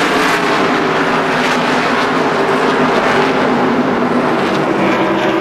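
A pack of NASCAR Winston Cup stock cars' V8 engines running hard together as the field pulls away on a green-flag restart: a steady, dense engine drone with several pitches layered over one another.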